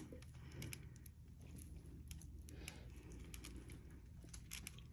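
Faint, irregular small clicks and crackles of metal surgical scissors and forceps working under a dry, thick-walled cyst, over a low steady hum.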